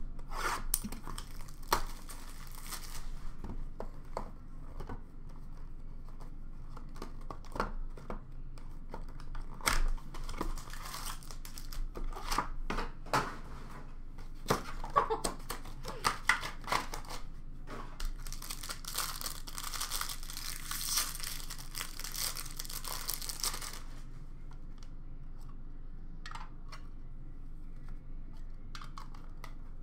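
Baseball card packs being torn open and their wrappers crinkled, with light clicks and rustles of cards being handled. A long stretch of crinkling comes about two-thirds of the way in, then it goes quieter with only a few light taps.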